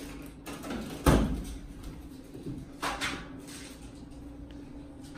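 Two sharp knocks, the louder about a second in and another about two seconds later, over a steady low hum.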